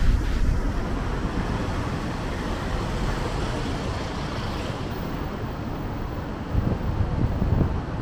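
City street traffic noise: cars passing on the road alongside, a steady low rumble that swells about six and a half seconds in.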